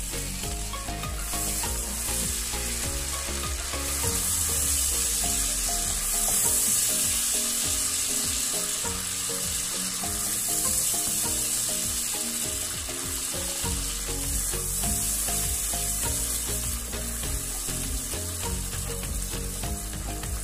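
Buttery sweet garlic sauce sizzling and bubbling in a nonstick frying pan while a wooden spatula stirs it, a steady hiss throughout.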